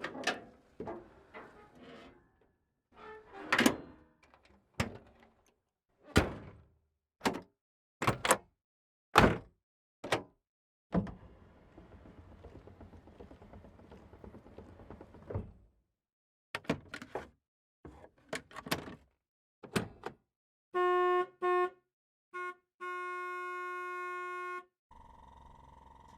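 A modified 1970 Chevy Chevelle's doors and body panels shutting, a string of separate thunks and clunks. A steady low whirring runs for a few seconds midway. Near the end comes the car's horn: a short honk, a quick blip, then a longer honk.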